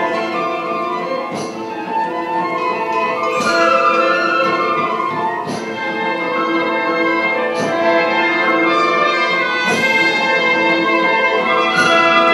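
Orchestral background music with brass: held chords, with a light stroke about every two seconds.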